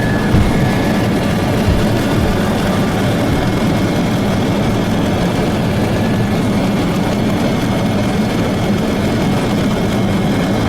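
Helicopter engine and rotor noise, a steady low drone.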